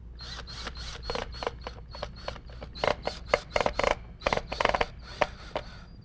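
Cordless drill driving wood screws into a board, run in a quick string of short trigger bursts, roughly three or four a second, each with a brief motor whine.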